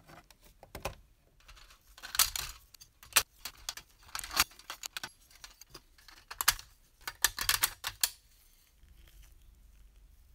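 Small hard parts of a tin toy bus model being handled and fitted together: bursts of light clicks and clatters, with small plastic seats set onto a thin metal floor plate. The clicking stops about eight seconds in.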